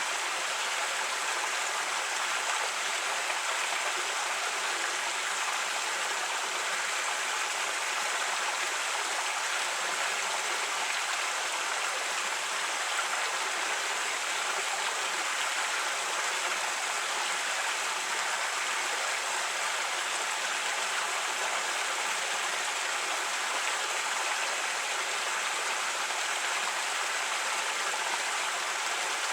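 A creek running over rocks: a steady, even rush of flowing water.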